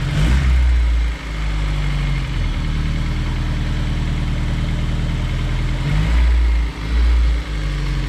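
Honda S2000's freshly rebuilt F20C2 2.0-litre inline-four idling on its first run after the rebuild, a steady low engine note that swells briefly twice, just after the start and about six seconds in.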